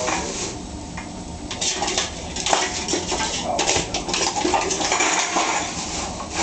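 Empty aluminium pop cans clinking and rattling together as a small dog tugs at the plastic bag holding them, with the bag rustling; irregular clatters throughout.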